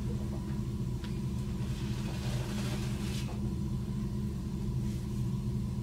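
A steady low hum with several pitched tones in it. About three seconds in comes a soft swish, a kamishibaï picture card being slid out of its wooden frame.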